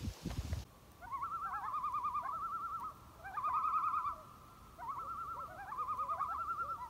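Common loons giving the tremolo call: rapid, quavering laughing calls that overlap one another, in three bouts with short pauses between.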